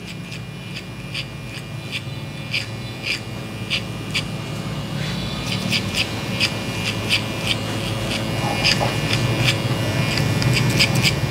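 Cordless hair clipper running steadily, cutting over a comb at the nape, with irregular light clicks one or two times a second. It grows a little louder toward the end.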